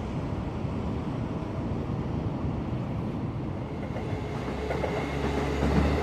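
A train running on railway tracks, its low rumble growing louder over the last second or two.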